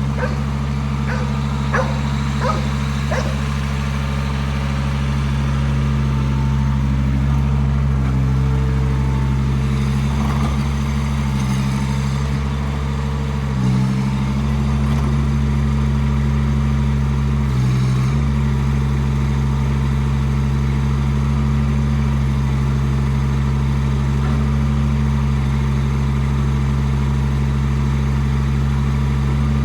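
Mini excavator engine running steadily, its pitch dipping briefly twice in the second half. A few short, high yelps sound over it in the first few seconds.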